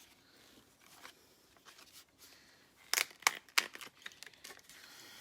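Quiet kitchen handling sounds: faint rustling, with a cluster of sharp crinkly clicks about three seconds in and a few more near the end.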